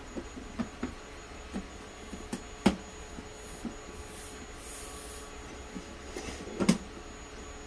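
A thin black panel being handled and set onto an aluminium extrusion frame: light taps and clicks, a few soft sliding scrapes of the sheet, and two sharper knocks, one about a third of the way in and one near the end.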